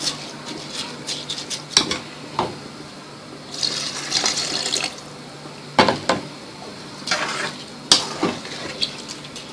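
Water being poured a little at a time into a pot of rice coated in ghee, with a pour of about a second and a half in the middle. Several sharp clinks against the pot come around it.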